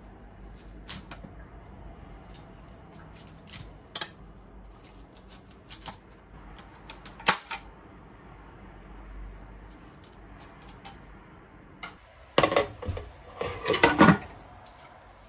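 Chef's knife cutting broccoli into florets on a plastic cutting board: scattered sharp taps and snaps. Near the end come a few seconds of louder clattering as a glass lid is handled on a steel pot.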